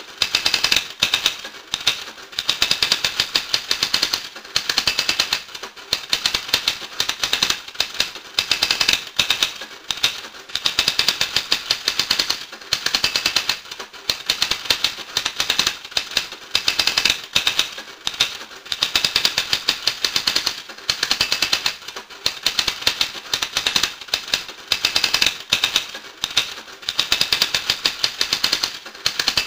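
Fast, dense clicking in runs of a second or two, with short gaps between the runs.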